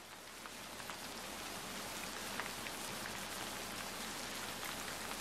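Steady rainfall with scattered individual drops ticking, fading in over the first couple of seconds.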